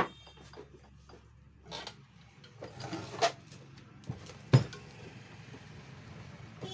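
Metal clanks and scrapes as a 14-inch cut-off saw is lifted and tipped over on a workbench. There is a sharp knock at the start, a few rattles and bumps, and the loudest clunk about four and a half seconds in as it is set down.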